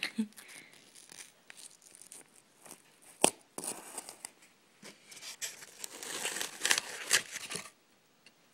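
Styrofoam packing and its cardboard box being handled: crinkling and crunching with scattered sharp clicks, one louder snap about three seconds in and a busier stretch of crackling in the second half.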